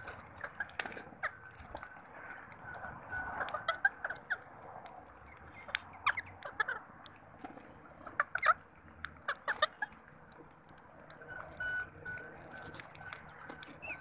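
A mixed flock of rock pigeons and rose-ringed parakeets feeding on seed: many short pecking clicks and brief bird calls, coming in clusters.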